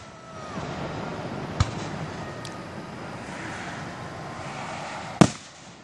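Aerial firework shells bursting: a sharp bang about a second and a half in and a louder bang near the end, with a faint pop between them. A steady rushing background noise runs underneath.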